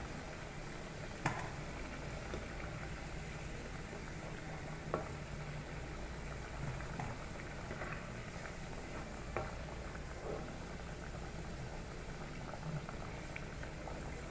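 Hot cooking oil bubbling and sizzling steadily in a pan as fried potato pieces are lifted out. A few sharp clicks of a utensil against the pan, about a second in, around five seconds and near nine seconds.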